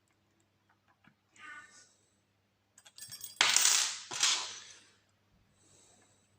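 Small metal lock-picking tools clinking and rattling against each other: a faint ring about a second and a half in, then a louder jangling rattle in the middle that dies away after about two seconds.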